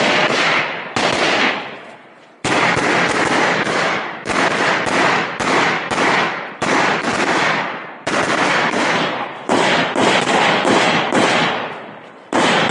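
AR-15 rifle shots fired in a rapid, uneven string, about twenty in all, mostly half a second apart, each with a short echo tail. The string pauses briefly twice.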